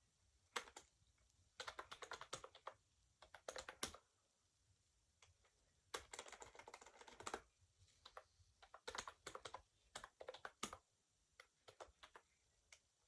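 Typing on an Onn wireless keyboard: quiet key clicks in several quick bursts with short pauses between them.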